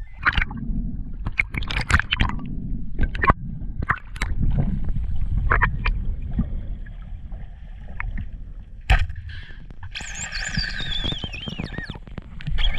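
Sea water sloshing and gurgling, with scattered sharp clicks and knocks. About ten seconds in, a high wavering whistle slides down in pitch.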